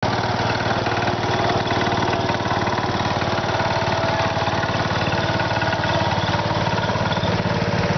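Cub Cadet garden tractor's small engine running steadily, with a rapid even putter, as the tractor is driven.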